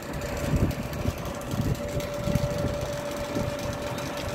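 Undecking lift's hydraulics running with a steady whine as it lowers a suspended truck on straps, with irregular low rumbles underneath.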